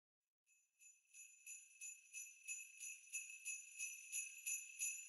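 Sleigh bells shaken in a steady rhythm, about three shakes a second, fading in from silence in the first second and growing louder.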